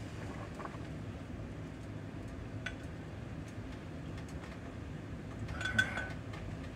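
A spoon clinking against a glass measuring cup as boiled yellow squash is scooped into it: a faint clink a few seconds in and a louder cluster of clinks with a short ring near the end, over a steady low background rumble.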